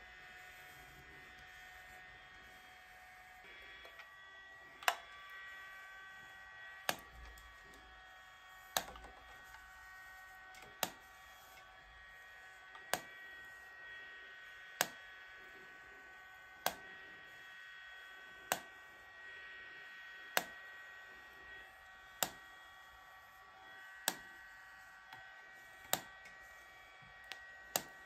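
Handheld IPL hair-removal device firing its flash with a sharp click about every two seconds, starting about five seconds in, over a steady high whine.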